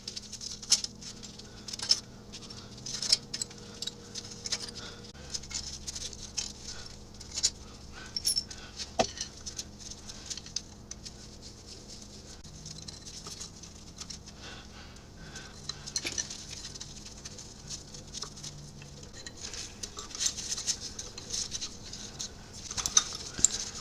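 Scattered light metallic clicks and clinks of hand tools and small steel bolts as the valve cover bolts are undone and set aside, over a faint steady hum.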